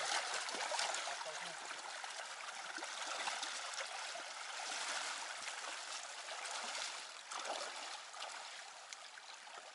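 Mountain river flowing over stones: a steady rush of water, gradually getting quieter toward the end.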